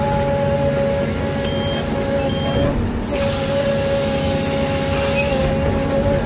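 Forestry harvester running, its engine and hydraulics giving a steady whine over a low rumble while the harvester head feeds a log through its rollers. About three seconds in, a harsh hiss joins for a couple of seconds as the head's chain saw cuts through the log.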